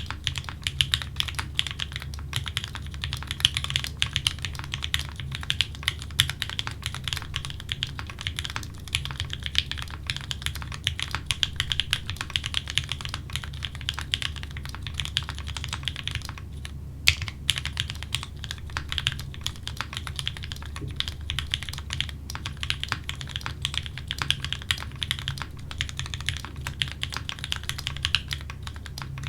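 Fast continuous typing on a Keycult no.2 TKL mechanical keyboard with an aluminium plate, fitted with Gateron Yellow linear switches that are lubed with 205g0 and filmed, and with GMK keycaps. The keystrokes run densely, break briefly about halfway through, and resume with one sharper stroke. A steady low hum sits underneath.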